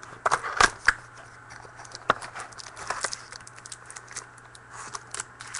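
Trading cards and foil pack wrappers being handled: a cluster of sharp clicks and crinkles in the first second, then scattered light crinkling and taps.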